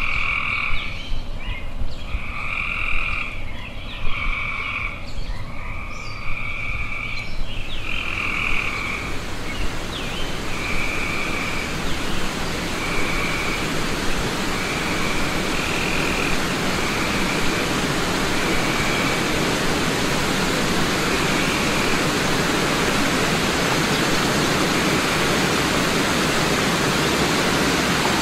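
Frogs calling in repeated trills of about a second each, one after another. The trills fade away over the first twenty seconds as a steady rush of water from river falls and rapids rises and takes over.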